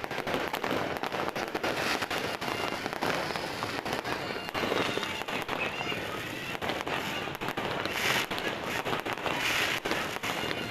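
Fireworks and firecrackers going off nonstop: a dense run of overlapping bangs and crackles.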